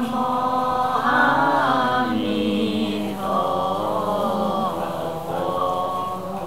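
Voices chanting a Buddhist liturgy in a slow, drawn-out melodic recitation, with long held notes that slide slowly up and down in pitch.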